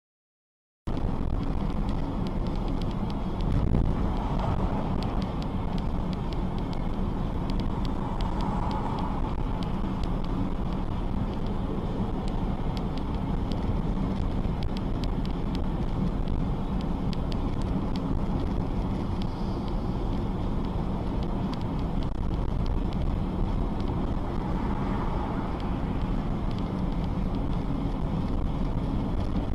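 Steady road and engine noise of a car in motion, heard from inside the cabin through a dash camera's microphone. It starts suddenly about a second in.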